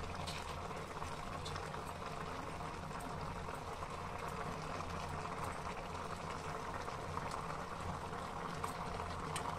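The last of the cooking water in a pan of grated-carrot halwa boiling steadily in a steel kadhai over a high gas flame, with ghee melting into it. A few light clicks of a steel spoon against the pan.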